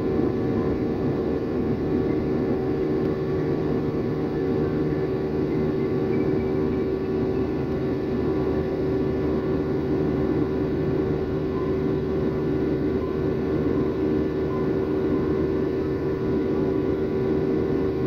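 Steady cabin drone of a Boeing 737's turbofan engines heard from a window seat during the climb: an even roar with a steady hum standing out in the middle of the range.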